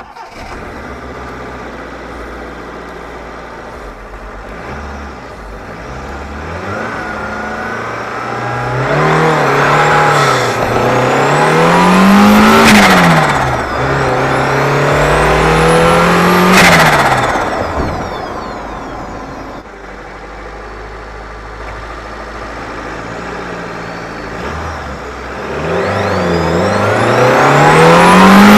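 Turbocharged Proton Satria 1.3-litre four-cylinder (4G13) engine running, then revved up three times with a faint rising turbo whistle; each rev ends in a sharp burst of released air as the throttle shuts and the revs fall, the turbo flutter and blow-off sound of its IHI turbo setup.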